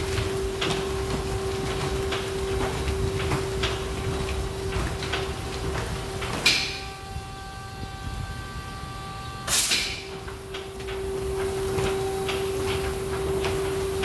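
All-cloth rollover car wash machine running, a steady motor hum with faint irregular clicks and slaps from the cloth brushes. About six and a half seconds in a short loud burst cuts the hum; for about three seconds only a few high steady tones are left, then a second burst and the hum starts again.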